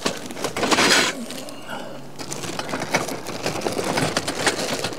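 Plastic wrapping crinkling and rustling as a shrink-wrapped bundle of thin tent poles is handled and laid on a table, loudest about a second in.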